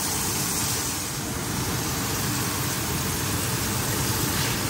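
Cubes of tofu sizzling in hot oil in a wok, a steady frying hiss.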